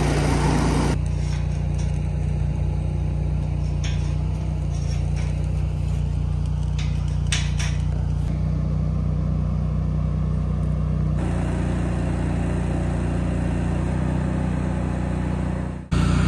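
Engine-driven welder-generator running steadily, a constant engine hum, with a few light metallic clinks of steel pipe fence parts being handled.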